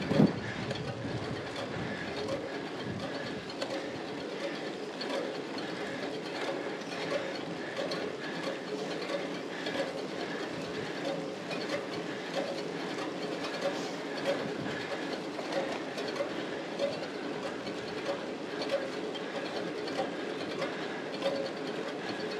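Road bike's chain and drivetrain rattling and clicking steadily under hard pedalling on a slow climb, with tyre hiss on the wet road. One louder knock right at the start.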